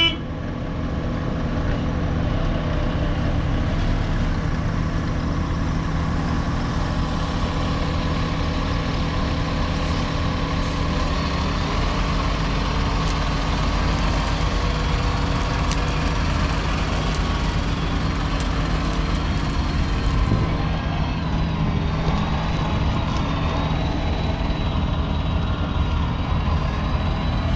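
A farm tractor's diesel engine runs steadily. A faint high whine comes in about halfway through and rises slightly in pitch.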